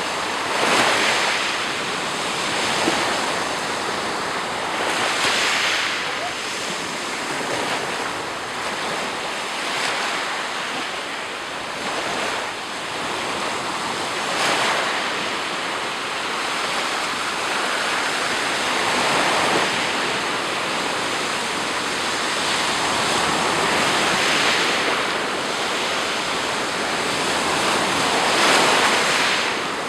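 Black Sea surf: waves breaking and washing onto the shore, the rush swelling about every four to five seconds.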